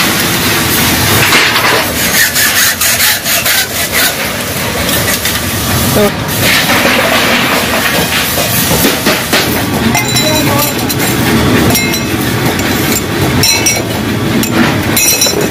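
Loud, continuous metalworking-workshop clatter: a steady din packed with short metallic clicks and knocks, with voices faintly in the background.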